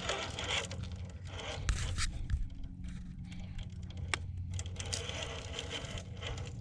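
Traxxas TRX-4 RC crawler working over rock on its brushed motor: tyres and chassis scraping and crunching against the stone, with a steady low hum from the drivetrain and a few sharp clicks.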